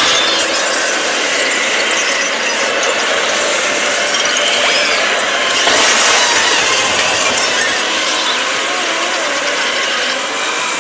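Continuous mechanical clattering and ratcheting with occasional high squeals, like cartoon sound effects of a rattling ride vehicle or machinery.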